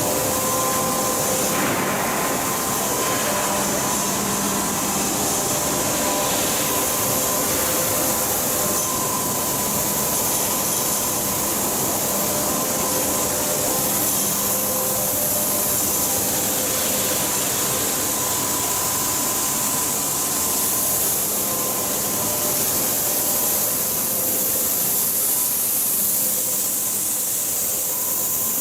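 Steel-coil cut-to-length line running: a steady mechanical drone with a constant hum and a strong high hiss, no distinct strokes standing out.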